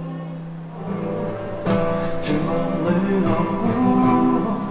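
Acoustic guitar: a held sound fades away over the first second, then rhythmic strumming starts about a second and a half in, the strummed intro of the next song.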